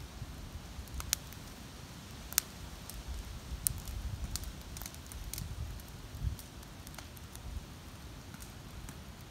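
Brush-pile fire of dry sticks burning, with sharp crackles and pops coming irregularly about once a second over a low rumble.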